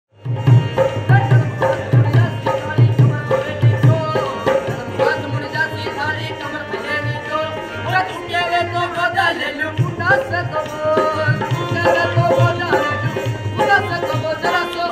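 Rajasthani folk music played live: a hand drum beating a brisk rhythm of deep strokes, with a wavering sung melody coming in over it about halfway through.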